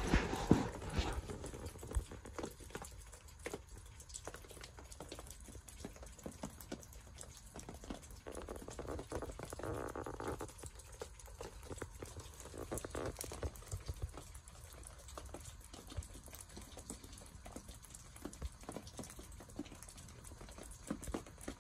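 Snowstorm precipitation pelting the canvas of a bell tent: light, irregular pattering and ticking, with a few louder knocks at the start and a brief hiss about nine seconds in.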